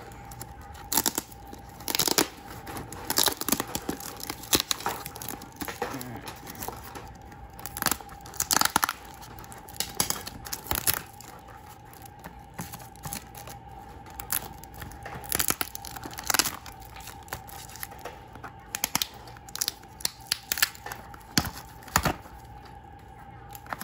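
Clear packing tape being ripped and peeled off a cardboard box, with the crumpled tape crinkling, in a series of short irregular rips. The box is taped all over.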